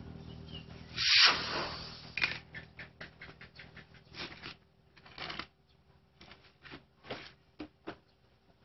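Rubber inner tube being pulled out from a motorcycle's rear tyre by hand, rubbing and scraping against the tyre and rim: a loud rub about a second in, then a run of short, uneven scrapes.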